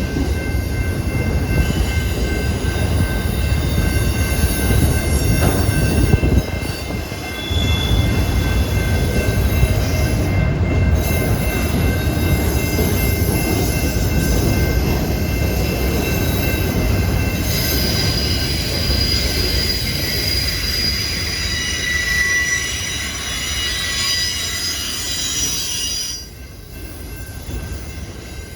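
Train rolling past with its steel wheels squealing on the rails: several steady high-pitched squeal tones over a heavy low rumble, which drops off about two seconds before the end.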